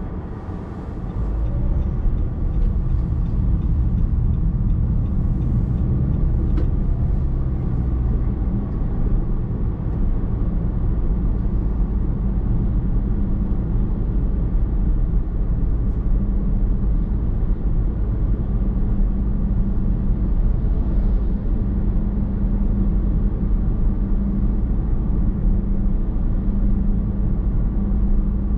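Car driving on the road, heard from inside the cabin: a steady rumble of tyres and engine that grows louder over the first two seconds, then holds even.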